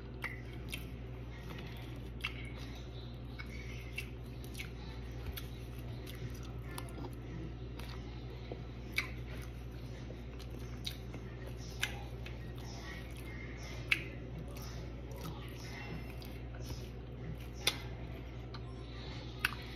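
Close-miked chewing of a soft pancake mouthful with lips closed: soft wet mouth clicks and smacks, a few sharper ones scattered through, over a steady low hum.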